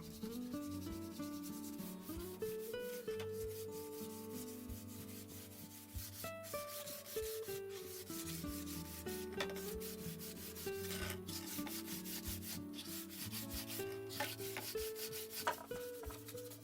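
Background music: a melody of held notes moving step by step over a bass line, with a dense scratchy, rubbing texture running through it.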